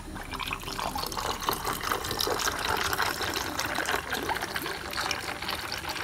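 Fizzy homemade ginger beer poured in a steady stream from a glass bottle into a glass mug of ice cubes: splashing over the ice and foaming, starting just after the opening moment.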